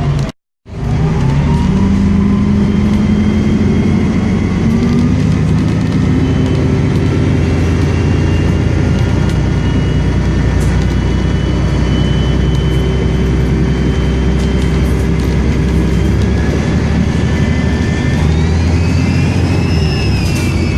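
Volvo Olympian double-decker bus engine pulling through its Voith automatic gearbox, with a loud high turbocharger whistle over the engine note. The whistle and engine pitch shift with the gear changes and climb again near the end. There is a brief cut-out about half a second in.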